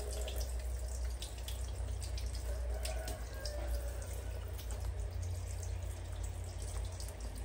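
Water running steadily from a handheld shower head, splashing off a wet baby monkey and onto a tiled floor, with scattered drips and small splashes.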